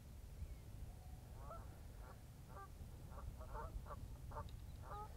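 Geese honking faintly in a string of short calls that start about a second and a half in, over a steady low rumble.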